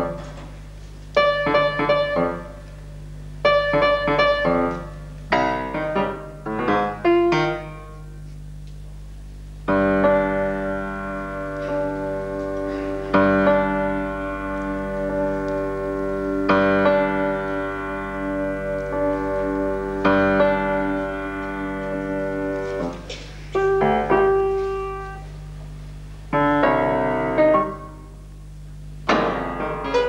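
Solo grand piano: short chords struck and cut off with gaps between them, a quick flurry of notes, then long sustained chords left ringing and struck anew every three or four seconds, then more quick figures and chords. A steady low hum lies under the playing.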